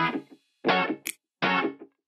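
Background music: distorted electric guitar chords struck about once every three-quarters of a second, each ringing briefly and fading, with a short high hiss between some of them.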